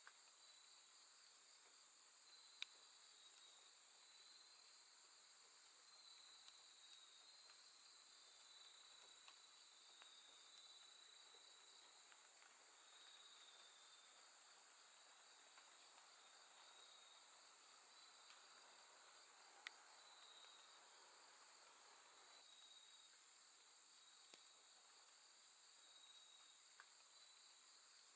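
Faint chorus of late-summer night grass insects such as crickets: a steady high-pitched trill with a lower, wavering song beneath it. A run of loud pulsed chirps from another insect comes from about 6 to 11 seconds in, and there are a few faint clicks.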